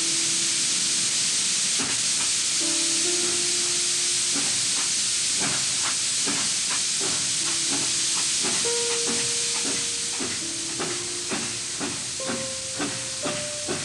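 Steam locomotive letting off steam, a loud steady hiss, with music of held notes over it. About ten seconds in the hiss eases and a run of short, regular pulses comes forward.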